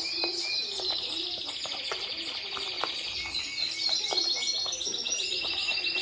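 Several caged songbirds singing at once: fast, high trills and chirps that overlap without a break. Underneath are faint ticks and scrapes of a wooden spoon stirring seed and egg food in a plastic tub.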